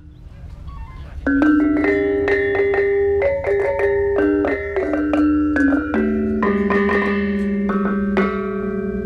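Balinese gong kebyar gamelan playing: bronze metallophones and a reyong of small bossed gongs struck with mallets in a quick melodic line, the notes ringing on with a wavering shimmer. It starts faint, and the full ensemble comes in about a second in.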